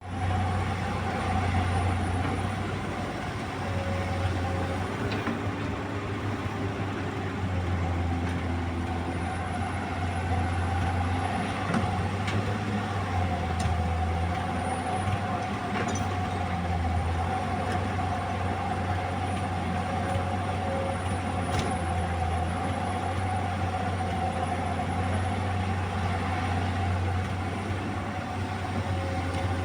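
Komatsu PC200 excavator's diesel engine running steadily while the machine digs and loads, with a steady higher whine above the low engine hum and a few faint clicks.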